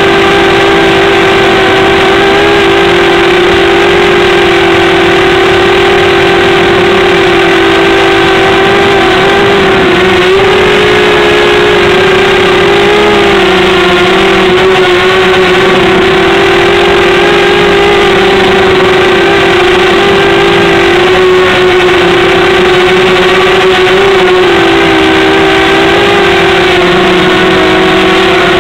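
A small motor running at a steady speed, one constant droning whine that wavers slightly in pitch a few times.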